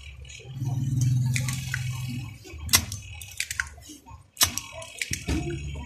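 A spring-loaded desoldering pump (solder sucker) is being cocked and fired on a circuit-board solder joint, giving a few sharp clicks and snaps in the second half. A low steady hum runs under the first half.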